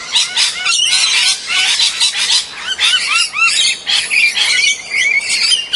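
A flock of birds chirping, with many short, high calls overlapping in quick succession.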